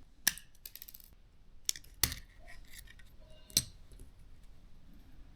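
Small metal and plastic drone parts being handled during disassembly: a handful of light clicks and taps as a metal shield and screws are taken off, with a quick run of small clicks about a second in and the sharpest tap at about two seconds.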